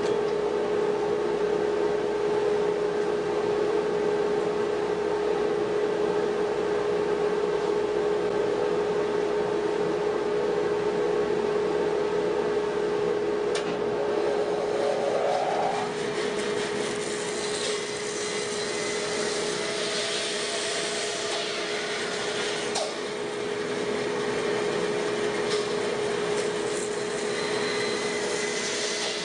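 Bandsaw running with a steady hum. A little over halfway through, its blade starts cutting into a fresh log to rough out a bowl blank, and a rough sawing noise joins the hum.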